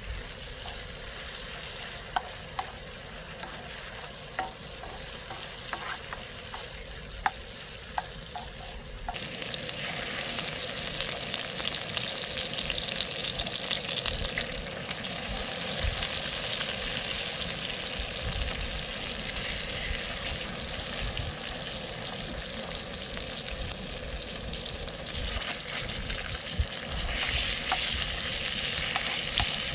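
Vegetables and fish pieces sizzling in oil on a hot griddle plate, with a few sharp clicks of a utensil against the plate in the first several seconds. About nine seconds in the sizzle grows louder and brighter, and it swells again near the end.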